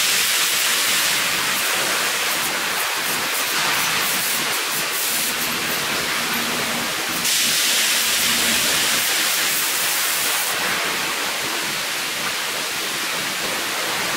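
Steady hiss of water spraying in a car wash bay, stepping louder and softer a few times.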